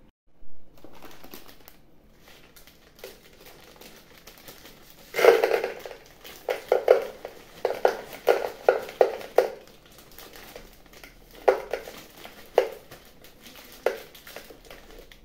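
Dry spaghetti poured from its plastic packet into a tall plastic storage container: the packet crinkles and the sticks clatter against the plastic in a quick run of sharp clicks, loudest at the start, followed by a few single clicks later on.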